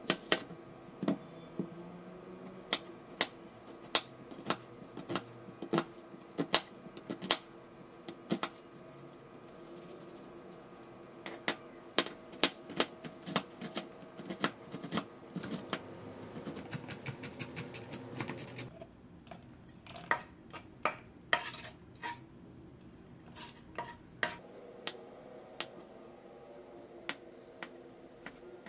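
Kitchen knife chopping an onion on a wooden cutting board: runs of sharp knocks of the blade on the board, about two a second, with short pauses. Later the knife cuts a potato into chunks on the same board, in shorter runs of knocks.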